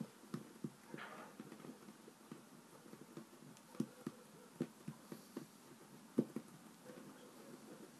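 Faint, irregular soft taps and rubbing of fingers pressing and rolling a small piece of play dough on a wooden tabletop.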